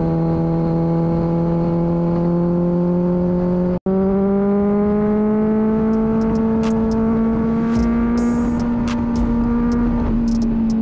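Kawasaki Ninja 1000's inline-four engine running steadily under way, its pitch climbing slowly as the bike gathers speed in one gear. The sound breaks off for an instant a little before four seconds in, and a few faint ticks come in the second half.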